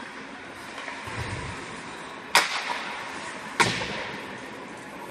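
Two sharp cracks of an ice hockey puck being struck, about a second apart, each ringing briefly in the rink's echo over a steady arena background.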